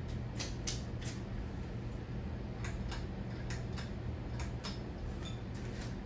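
52-inch Hunter Stratford ceiling fan running, a steady low motor hum with light clicks at uneven intervals.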